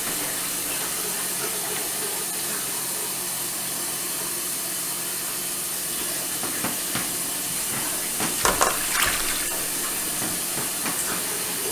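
Water running steadily from a tap, with a few brief knocks about eight to nine seconds in.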